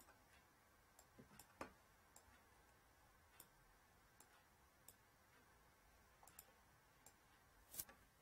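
Near silence broken by about a dozen faint, scattered clicks of a computer pointing device, with two louder ones about one and a half seconds in and near the end.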